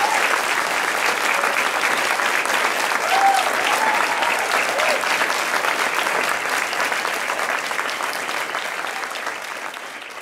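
Theatre audience applauding, with a few short calls from the crowd rising over the clapping; the applause fades away near the end.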